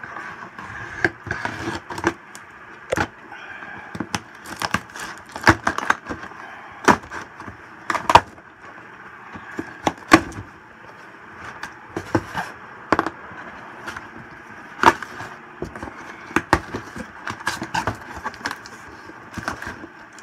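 Cardboard shipping box being opened by hand: packing tape worked loose at the seam, flaps pulled open and crumpled brown packing paper crackling, in irregular sharp cracks and crinkles.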